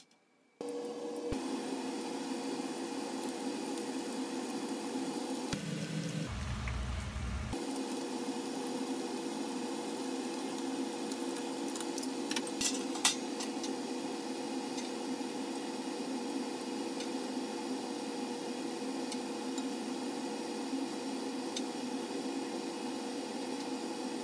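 Panko-breaded broccoli florets deep-frying in a pot of oil: a steady sizzle with a low, even hum beneath it, starting suddenly about half a second in. A few sharp clicks about halfway through.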